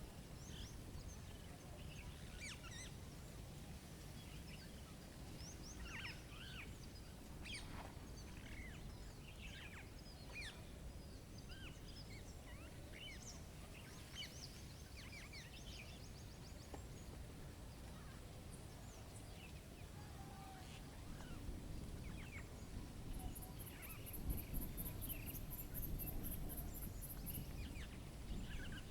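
Small songbirds chirping and calling at a feeder, many short scattered notes, over a steady low rumble of wind. Near the end a fast, very high-pitched trill runs for about four seconds.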